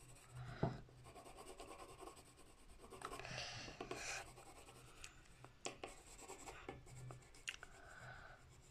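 Graphite pencil scratching faintly on notepad paper in short shading strokes, with a few soft ticks.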